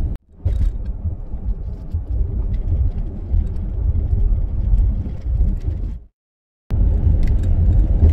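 Road and engine noise from inside a moving car: a steady low rumble with a few faint ticks and rattles. The sound drops out to silence briefly just after the start and again about six seconds in.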